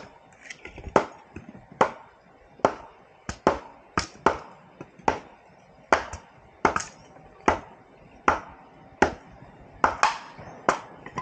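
Bolo knives chopping and trimming sticks on a wooden block: a steady run of sharp chopping knocks, about one or two a second, some coming in quick pairs.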